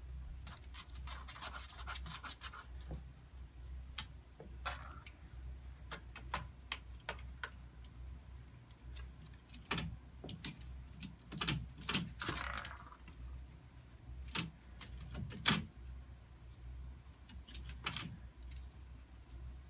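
Irregular clicks, taps and short scratchy scuffles as a Pomeranian puppy and a cat paw at each other through a wooden mesh baby gate, their claws and paws striking the gate and the floor. The loudest taps come in the second half, over a steady low hum.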